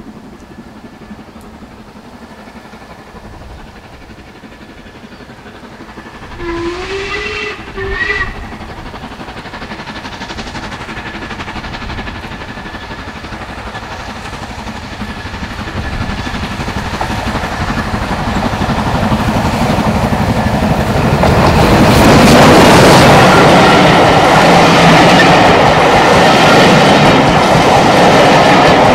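Steam locomotive whistle about six seconds in, a longer blast and then a short one. Then the train approaches and passes close, growing steadily louder into a loud rumble with the clickety-clack of wheels over the rail joints.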